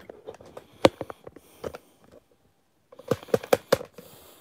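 Handling noise of a phone being fitted onto a tripod mount: scattered sharp clicks and knocks, a brief silent gap a little over two seconds in, then a quick run of louder clicks as it seats.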